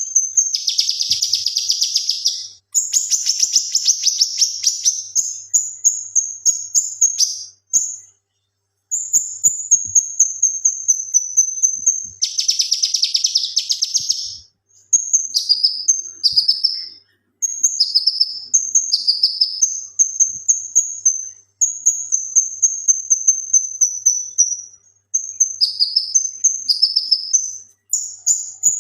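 Male cucak kinoi singing in full voice: thin, high whistled phrases broken by three rapid, dense chattering runs, the 'tembakan' bursts. Over the second half it gives a string of short notes, each dropping in pitch, with brief pauses between phrases.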